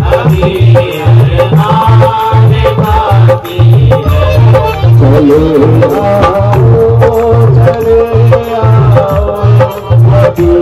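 Live devotional bhajan: a dholak keeps a steady beat under harmonium and a singing voice, with hand clapping along.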